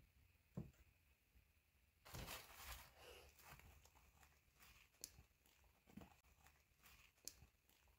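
Faint rustling and crinkling of tissue paper as hands fold it back inside a shipping box. The rustle is loudest about two seconds in, with a few light taps and ticks around it.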